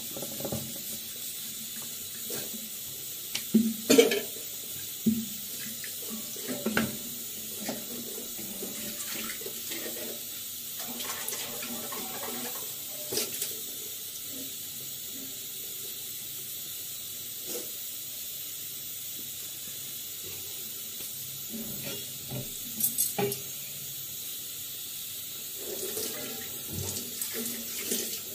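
Gas stove burner hissing steadily under an iron tawa, with scattered knocks and clatters of a rolling pin and utensils, loudest about four seconds in and again a little past the two-thirds mark, and a run of clatters near the end as tongs and the tawa are handled.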